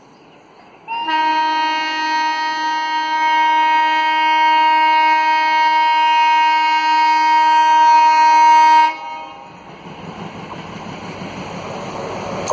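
Air horn of a twin-unit ALCO diesel locomotive consist: one long, loud, steady horn blast of several notes, about eight seconds, cutting off sharply. After it, the rumble of the approaching train grows louder.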